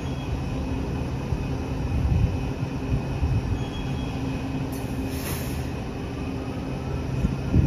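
Washington Metro Blue Line train pulling into a station before its doors open: a steady electric hum from the railcars, with a short hiss about five seconds in.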